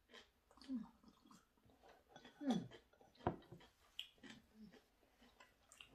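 Quiet eating and drinking sounds: chewing and swallowing with soft clicks of wooden chopsticks, and a couple of brief low mouth sounds.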